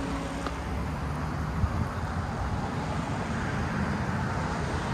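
Steady road traffic noise from cars on the street alongside, with a low rumble and a small knock about a second and a half in.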